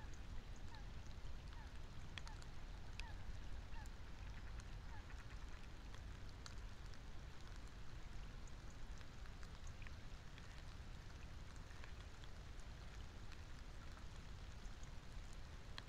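Steady rain falling on open water, with scattered sharp raindrop ticks over a low rumble. During the first few seconds a bird gives a series of short, falling calls, about one or two a second.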